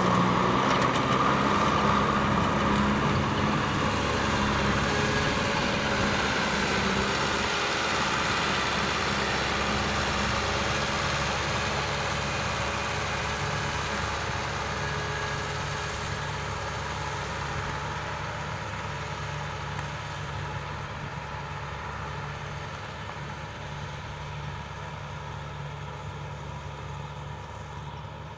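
Kubota M6040SU tractor's diesel engine running steadily while working the field, growing gradually fainter as the tractor moves away.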